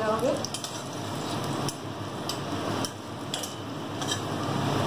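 Garlic sizzling in hot oil in a steel kadai while a flat steel spatula stirs it, with scattered clicks and scrapes of metal on metal.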